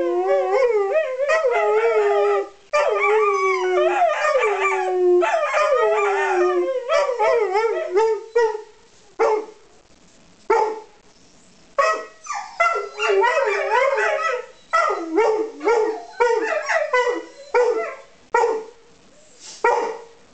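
Two or more dogs vocalising as they play: drawn-out howling calls that slide down in pitch and overlap for the first several seconds, then a string of short barks and yowls with brief pauses between them.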